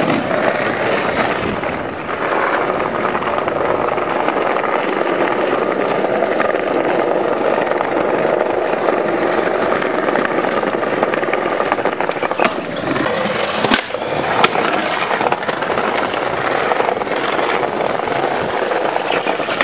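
Skateboard wheels rolling steadily over brick paving, a continuous rumble, with a few sharp board clacks about two-thirds of the way through.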